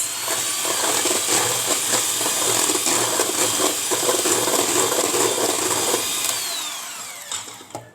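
Electric kitchen mixer running steadily with its beaters churning pancake batter as flour is added, then winding down with a falling whine near the end.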